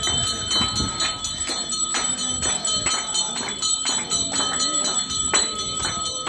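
Hindu temple bells ringing, struck over and over at about two strikes a second, their ring carrying on between strokes.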